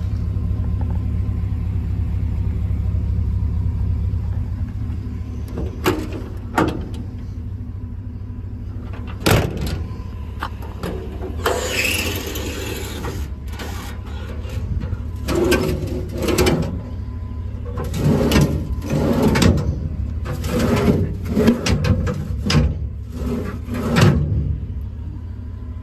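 A truck's gasoline V8 engine running at idle as a steady low hum, with scattered knocks and clatter and a brief hiss about twelve seconds in.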